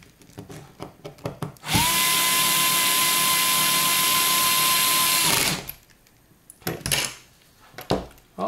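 Cordless electric screwdriver driving a screw into a metal airsoft gearbox shell: the motor spins up quickly to a steady whine, runs for about three and a half seconds, then stops. Light clicks and knocks of handling the parts come before and after.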